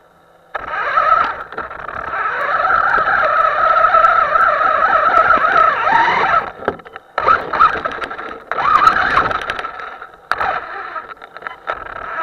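Electric motor of a Himoto radio-controlled car whining as it drives, starting about half a second in and cutting out and coming back several times.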